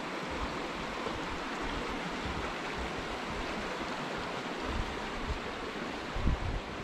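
Steady rush of a shallow rocky creek flowing beneath a footbridge, with a few low thumps, the loudest about six seconds in.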